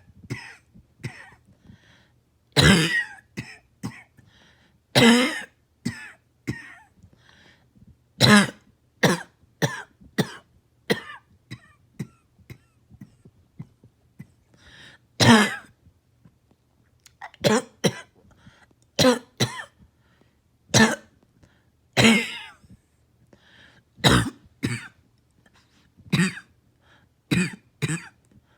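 Repeated coughing: single loud coughs and short runs of smaller ones every few seconds, with throat clearing between.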